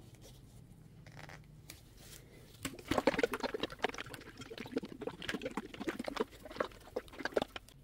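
A plastic juice bottle of thick homemade acrylic pouring medium being shaken by hand, the liquid sloshing and splashing inside in quick irregular strokes. It starts about two and a half seconds in, after a quiet start.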